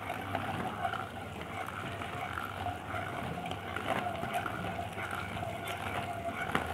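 Hand-cranked stainless-steel food mill turning steadily, its blade pressing boiled red peppers against the perforated disc: the flesh is pushed through while the skins stay on top.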